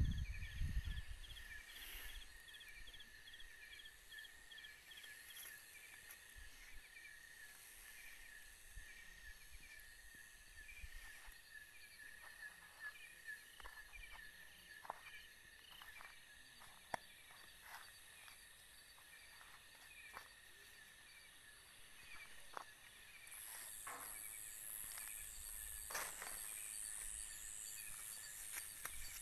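Night insect chorus of crickets: a steady high trill with rows of rapid pulsed chirps over it, a higher buzz joining near the end. Scattered light clicks and rustles of movement on the ground, with low bumps at the very start.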